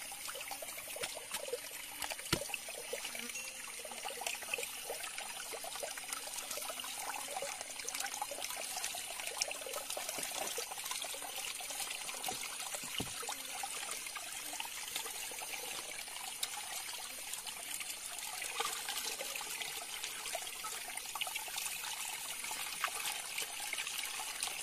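River water trickling and splashing steadily, with a faint knock about two seconds in and another about thirteen seconds in.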